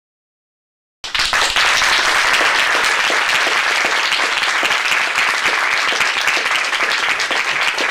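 Audience applauding: many hands clapping in a dense, steady patter that starts suddenly about a second in.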